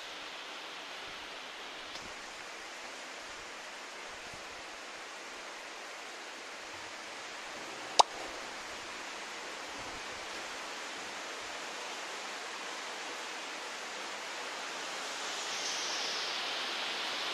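Steady hiss of background noise with a single sharp click about halfway through. The hiss grows a little louder near the end.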